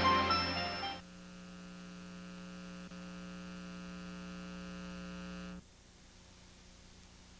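The tail of soundtrack music dies away in the first second, then a steady electrical mains hum with many overtones takes over. The hum cuts off suddenly about five and a half seconds in, leaving faint hiss.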